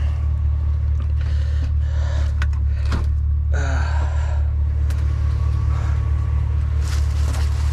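A vehicle engine idling with a steady low hum, with a few sharp clicks and rattles of junk being handled in the middle.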